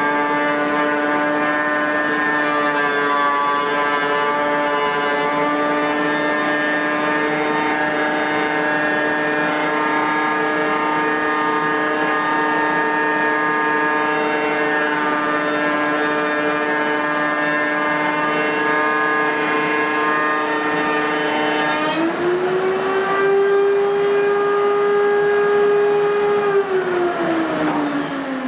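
Router table with four 2-1/4 hp routers and a power feeder running with a steady, loud whine while a board is fed through the bits. About three-quarters of the way in the pitch steps up as the board clears the cutters, and near the end the motors wind down with falling pitch as they are switched off.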